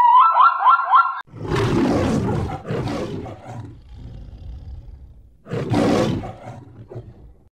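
Lion roaring: a long, loud, rough roar followed by softer grunting and a second roar near the end. In the first second, a rapid repeating high warble cuts off abruptly.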